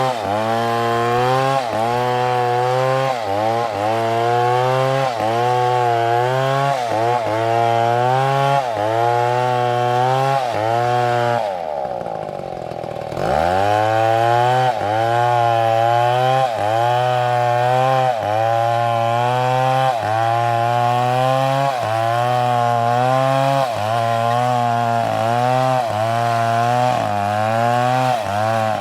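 Chainsaw cutting into a tree trunk, its engine pitch rising and falling about once a second as the saw works through the cut. Just before halfway the engine drops nearly to idle for a second or so, then revs back up into the cut.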